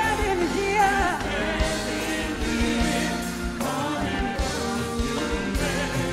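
Live gospel worship song: a woman sings lead into a handheld microphone over a band with keyboard and a steady beat. Her voice stands out most in the first second or so, then the sustained keyboard chords carry.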